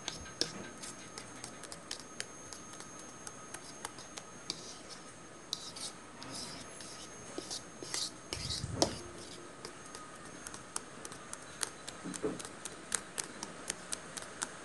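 A utensil stirring cake batter in a bowl: irregular light clicks against the bowl with short scraping passes, the batter being mixed. A dull low knock about eight and a half seconds in.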